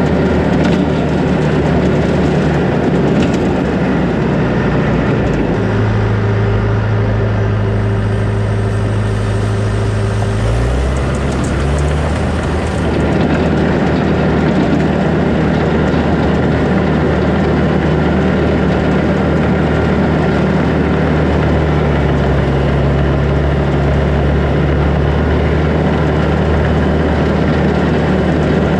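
John Deere 450H crawler dozer's diesel engine running steadily while the machine works gravel. The engine note shifts for several seconds around the middle, then settles back to a steady drone.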